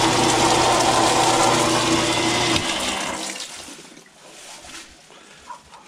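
Belt-driven power sprayer piston pump running steadily, its motor hum mixed with a rush of water, working properly again after a freeze-damage repair. About two and a half seconds in it is shut off and winds down over about a second.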